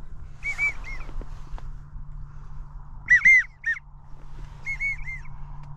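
Wigeon whistles: three short runs of two or three high, arched whistled notes, the middle run much the loudest.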